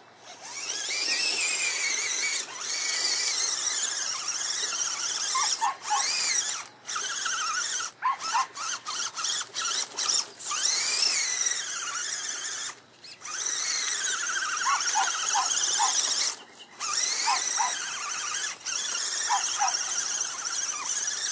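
Electric motor and drivetrain of an Axial SCX10 Honcho RC truck whining as it is driven through deep mud, the high whine rising and falling in pitch with the throttle. It cuts out briefly several times, with a quick run of on-off throttle blips about eight to ten seconds in.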